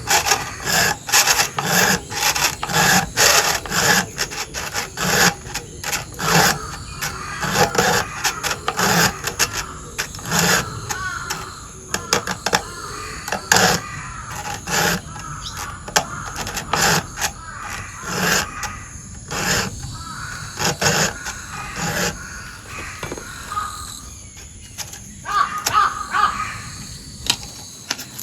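A 4 mm round chainsaw file being stroked across the cutters of a chainsaw chain to sharpen them: a long run of repeated rasping strokes, about one to two a second.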